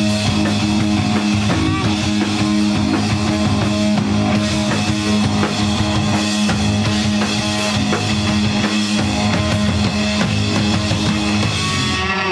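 Live rock band playing loud and steady: hollow-body electric guitar, electric bass and drum kit. Near the end the drums and cymbals stop, and the held guitar and bass notes ring on.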